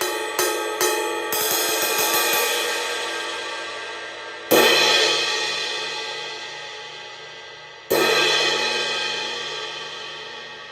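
Repaired Paiste Signature 18-inch Full Crash cymbal played: a few light strokes at first, then two hard crashes about three seconds apart, each left to ring out and fade slowly.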